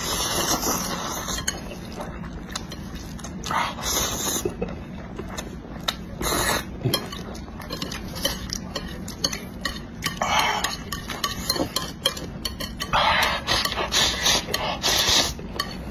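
A person slurping and chewing spicy instant noodles in about six short bursts, with chopsticks clicking and scraping against a plate between mouthfuls.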